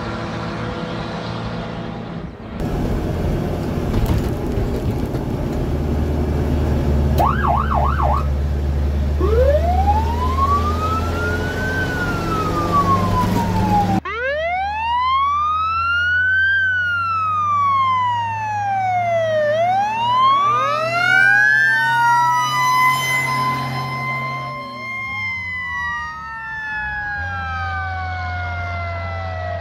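Fire truck's 500 cubic inch straight-six International gas engine running loud under load. About halfway through, a few quick siren chirps give way to the siren winding up and coasting down. After that the siren wails up and down over the engine, several overlapping tones at once.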